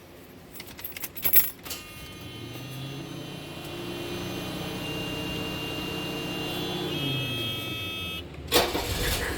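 Car keys jangling and clicking in the ignition, then a steady mechanical whir for several seconds. About eight and a half seconds in, the Mercedes 300SD's five-cylinder turbodiesel starts with a sudden loud burst.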